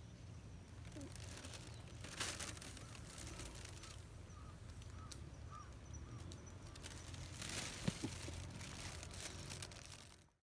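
Outdoor ambience with a steady low rumble, two bursts of rustling (about two seconds in and again near eight seconds), and a string of faint short chirps in between. The sound cuts off just before the end.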